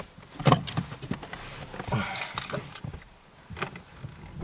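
Handling noise: a string of knocks and clicks from things being picked up and moved, with a brief metallic jingle about two seconds in and a heavier thump at the end.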